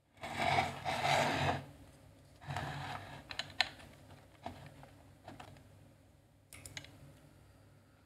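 An opened hard drive being handled on a wooden desk: sliding and scraping as it is turned over, then a series of sharp clicks and knocks as the power connector is pushed in. No motor spin-up follows, since the drive is getting no power.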